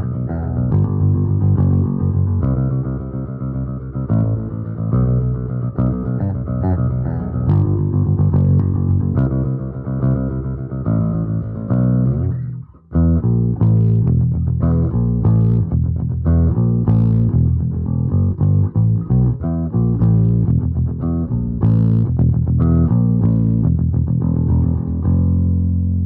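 Jackson Kelly KBX electric bass, freshly strung, played solo and recorded direct through an audio interface. A run of sustained notes is followed by a short break about halfway through, then faster, sharply plucked notes.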